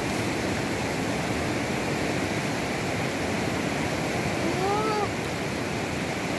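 Rimbi River flowing fast over rocks and rapids: a steady rush of running water.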